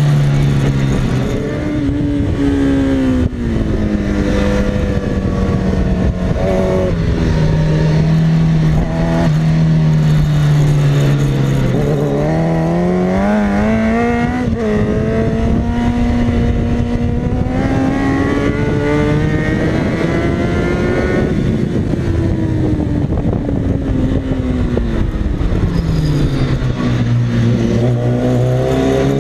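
2004 Kawasaki ZX-10R's inline-four engine at full track pace, heard from on board: revs climb hard through the gears with short dips at each upshift, fall away into the corners, then climb again near the end, over steady wind rush.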